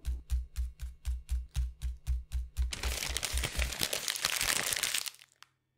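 A steady beat of low thumps with sharp clicks, about four a second, then paper crinkling for about two seconds as a crumpled sheet is opened out, cutting off suddenly.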